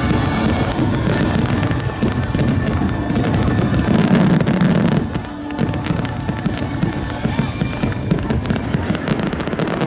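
Rapid fireworks bursts and crackle over loud closing orchestral music. The music fades about halfway through, leaving a fast barrage of sharp bursts: the final volley of the show.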